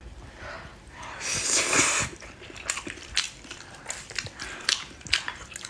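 Close-miked eating sounds: a loud breathy slurp of food taken into the mouth about a second in, then chewing with a string of sharp clicks as chopsticks work the dishes.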